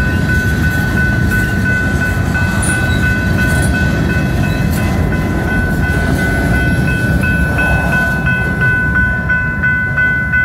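Freight train of covered hopper cars rolling past over the rails with a steady rumble, while the grade crossing's warning bell rings steadily on top. Near the end the last cars go by and the rumble thins, leaving the bell clearer.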